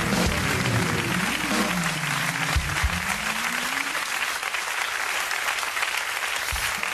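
Studio audience applauding steadily, with music playing under the applause for the first few seconds before it ends about halfway through.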